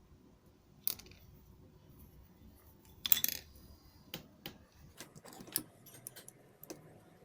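Metal hand tools clinking and scraping against the steering rack while its oil seal is pried out. The sharpest clink comes about three seconds in, followed by a scatter of lighter clicks.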